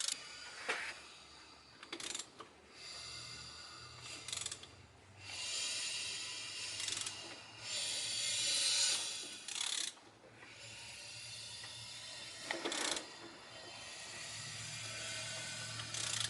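Ratchet wrench clicking in repeated strokes, each lasting a second or two, with a few sharp clicks between them, as a BMW M44 1.9 L four-cylinder engine is turned over by hand to watch the timing chain.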